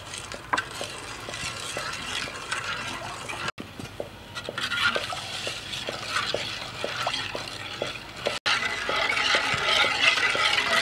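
Metal spoon stirring a milky, sugared liquid in an aluminium pot, with a steady swishing and small clicks as the spoon knocks and scrapes the pot's sides. Broken by two short gaps.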